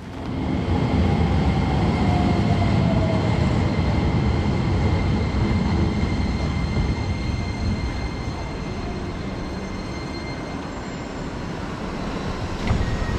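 A train running with a loud, steady rumble that swells up over the first second. Thin steady high whines sit over it, and a tone falls in pitch about a second in.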